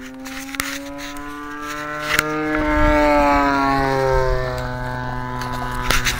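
A motor hum with a steady pitch that swells and then fades over a few seconds. Its pitch rises slightly and then falls, like something passing by.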